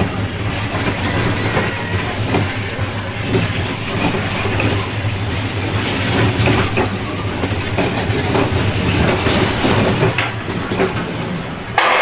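Haunted-house dark-ride car running along its track, with a steady low motor hum under constant clattering and rattling from the car and its wheels. A sudden loud noise starts right at the end.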